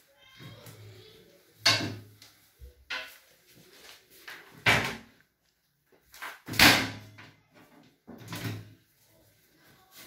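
Metal oven racks and trays being pulled out and handled at an oven, a series of sharp clanks and knocks a second or two apart, the loudest about two thirds of the way through.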